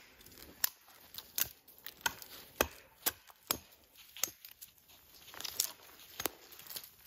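Dead wood snapping: side branches being broken off a dead pole, a series of sharp cracks and knocks about one to two a second at uneven spacing.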